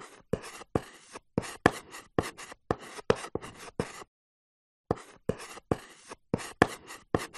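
Chalk writing on a blackboard: quick taps and short scrapes, one per stroke of the letters, about three or four a second, with a brief pause a little past halfway.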